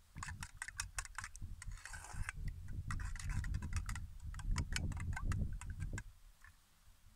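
Metal spoon clinking and scraping against a metal bowl while stirring yogurt, a quick irregular run of ticks that stops about six seconds in.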